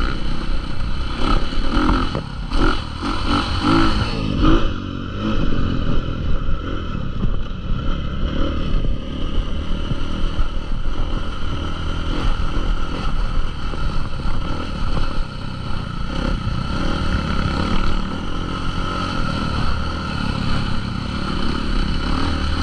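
Motocross dirt bike engine running steadily, with a run of short clattering knocks in the first few seconds.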